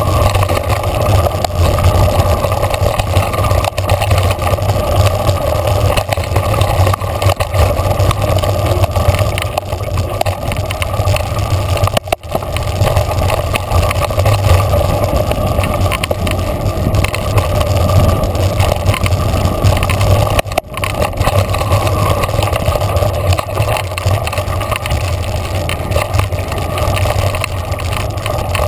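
Mountain bike riding fast down a dirt trail, heard through a handlebar-mounted camera: a steady loud rush of wind on the microphone and tyre noise, with fine rattling clicks from the bike. The level drops briefly twice, about twelve and twenty seconds in.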